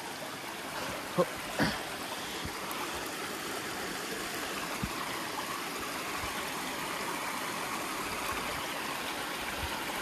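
Spring water welling out of the ground and rushing steadily over rocks in a small shallow stream, with two short thumps a little over a second in.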